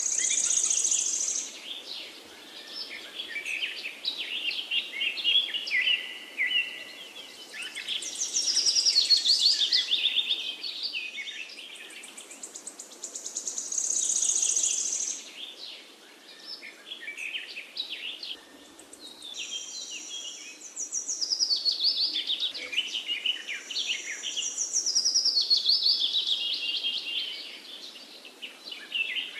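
Several songbirds singing in a forest, their phrases of quick chirps and trills overlapping and swelling every few seconds, some with a high held note, over a faint steady hiss.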